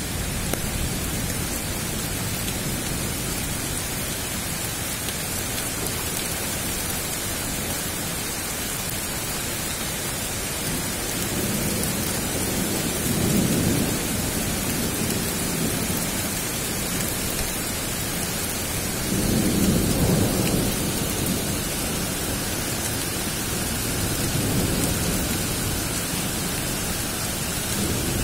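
Thunderstorm: steady rain with thunder rumbling three times. There is a rumble a little under halfway through, a louder one about two-thirds in, and a fainter one near the end.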